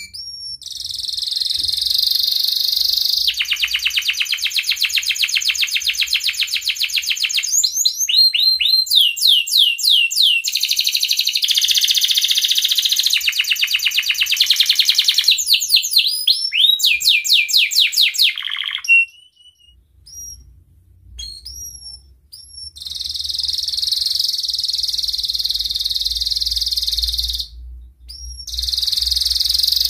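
Domestic canary in breeding condition singing: long, fast trills and rolls with runs of quick rising sweeps, breaking off for a few seconds in the middle with only a few short chirps, then rolling again.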